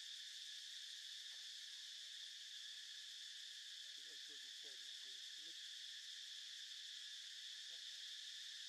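Faint, steady insect chorus: a continuous high-pitched drone that does not change.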